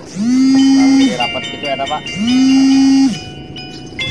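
Alarm sound effect edited in: a low tone swoops up and holds for about a second, over a jingle of high bell-like tones, repeating every two seconds. It is the 'alarm' that signals a giant snakehead is about to strike.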